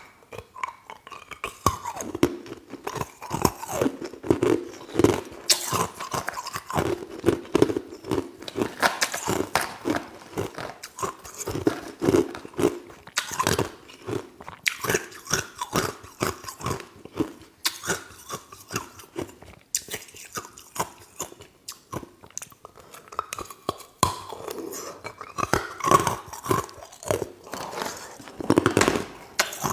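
Ice being bitten and chewed: a dense, irregular run of sharp crunches throughout.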